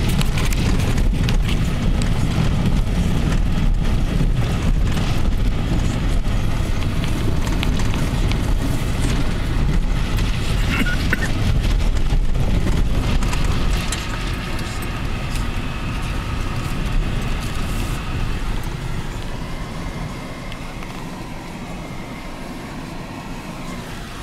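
Car driving on a rough gravel dirt road, heard from inside the cabin: a steady rumble of tyres on gravel with many small clicks and rattles. It gets quieter a little past halfway through.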